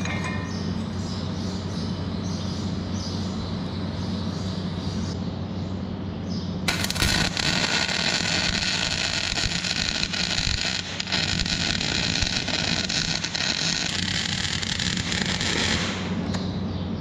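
MIG welder striking an arc on a steel bracket about seven seconds in: a loud, steady crackling sizzle of wire-feed welding that lasts about nine seconds and stops shortly before the end. A steady low hum runs underneath throughout.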